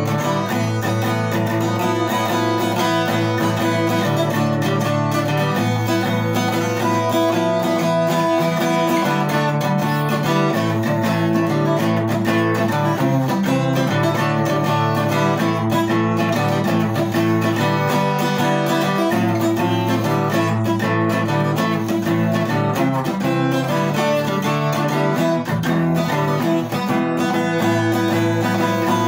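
Acoustic guitar strummed in a steady rhythm, the chords changing every couple of seconds: an instrumental passage with no singing.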